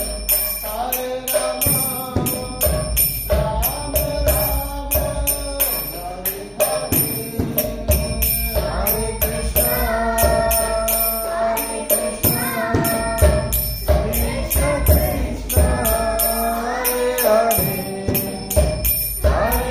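Chanted singing with music over a steady beat of jingling hand percussion.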